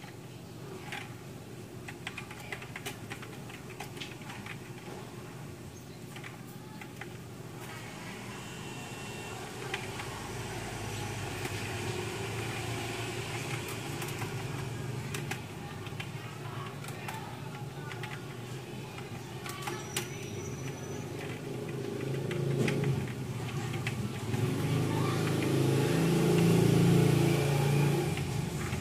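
Background motor-vehicle noise, with an engine getting louder over the last few seconds and a few faint clicks scattered through.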